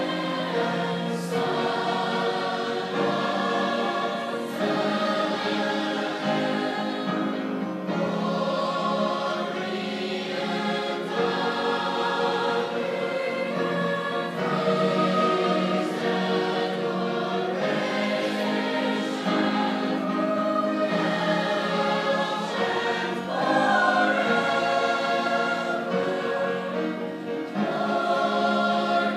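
A large choir singing, many voices together holding long chords that change every second or two.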